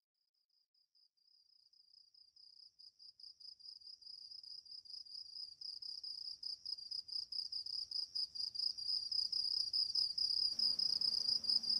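Crickets chirping in a steady, rapid pulsing trill that fades in from silence and grows louder, like a night-time ambience. A low steady hum joins near the end.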